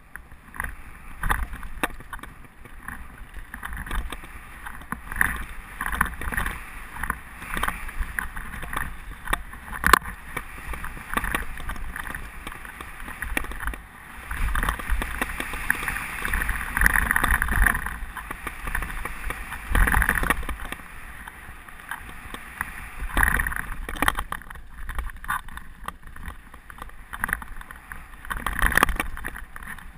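Mountain bike descending a dirt singletrack: wind rushing over the microphone, tyres rumbling on the dirt and the bike rattling, with frequent sharp knocks over bumps.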